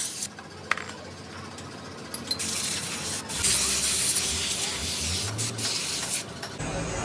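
A hissing spray that starts and stops: a short hiss at the very start, then a longer one from about halfway in.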